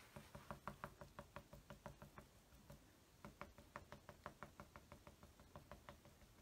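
Faint, quick light taps of a foam sponge dauber dabbing paint onto a painted wooden cutout, about five taps a second, with a short pause about halfway through.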